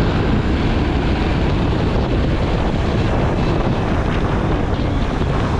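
Motorcycle running while being ridden, its engine buried under steady wind noise buffeting the microphone.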